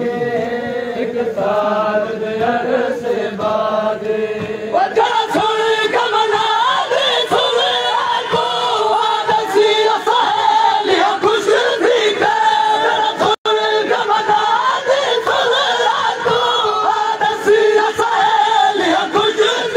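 A crowd of men chanting a noha, a Shia mourning lament, together in a sung refrain. About five seconds in the voices grow fuller and higher, and there is a momentary dropout in the sound past the middle.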